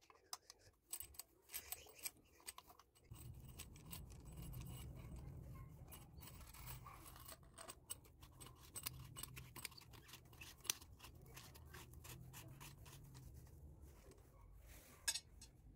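Faint small metallic clicks, clinks and scrapes from handling a chrome basin mixer tap, its threaded shank and braided steel supply hoses as they are fitted together. A low steady rumble comes in about three seconds in.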